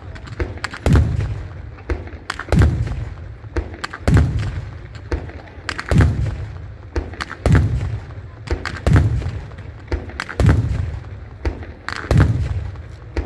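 Firework shells of a Bolognese-style battery going off in a steady sequence: a deep boom about every second and a half, with sharper cracks and crackle in between.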